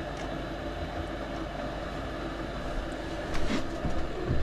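Gas furnace's fan motor running with a steady mechanical hum, and a brief clatter about three and a half seconds in.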